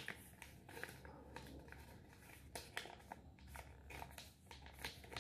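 Faint rustling and crinkling of a sheet of paper being handled and folded by hand, with scattered soft crackles.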